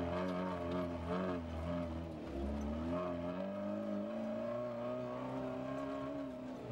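Engine of a 'Gazik' off-road rally-raid jeep working hard in sand, heard from inside the cabin. The revs rise and fall unevenly for the first few seconds, then settle into a steadier pull.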